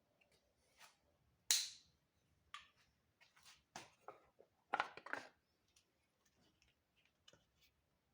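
Irregular sharp clicks and clacks of hand tools and metal parts being handled, with a loud clack about one and a half seconds in and a quick cluster of them around five seconds.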